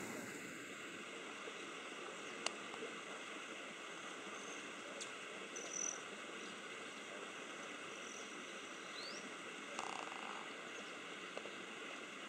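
Quiet outdoor ambience: a steady drone of insects, with a few brief high bird chirps and light clicks.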